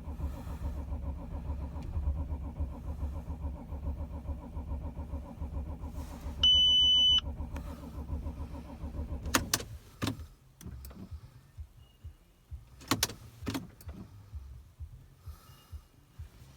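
Starter motor cranking the Audi 2.7 TDI V6 diesel in rhythmic pulses without it catching, a no-start when cold; a short electronic beep sounds about halfway through. The cranking stops at about nine and a half seconds, followed by a few sharp clicks.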